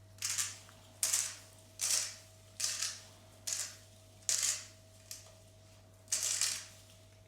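Salt shaken from a shaker over a bowl of popcorn: eight short rasping shakes, about one every second, the last one a little longer.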